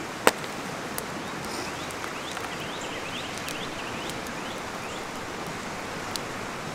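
Steady rushing of a spring creek, with a sharp click just after the start and a run of short rising chirps in the middle.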